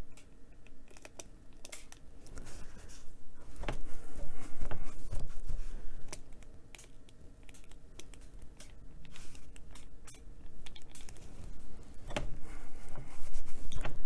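Plastic trigger spray bottle being pumped to spritz water onto a coloring-book page, the sprays sputtering out in big blobs rather than a fine mist, with a terry washcloth rubbing and dabbing the paper. Scattered clicks and rustles, with two louder stretches of rubbing, one about four seconds in and one near the end.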